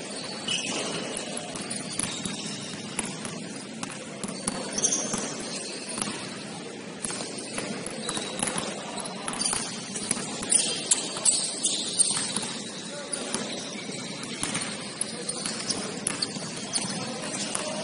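Indoor basketball game in play: ball bouncing and sneakers squeaking on the court over indistinct voices of players. A run of sharper knocks comes about ten to twelve seconds in.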